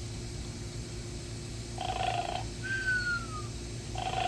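Robot dog toy's speaker playing a cartoon snoring sound effect for its sleep mode: a short rasping snore, then a falling whistle. The pair repeats about every two seconds, and the next snore begins near the end.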